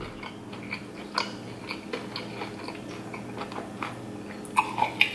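Close-miked mouth and throat sounds of drinking from a glass: small wet clicks and swallows, about three a second, with a few louder ones near the end. A faint low steady hum runs underneath.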